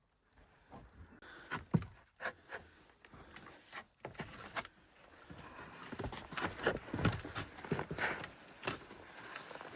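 Irregular soft knocks and scrapes, spaced unevenly, with a faint rustling noise from about halfway through.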